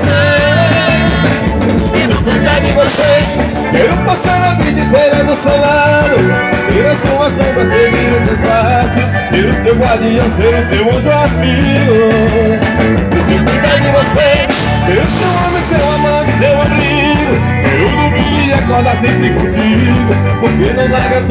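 Live forró band playing loudly, a piano accordion over electric guitars and a steady bass-heavy beat.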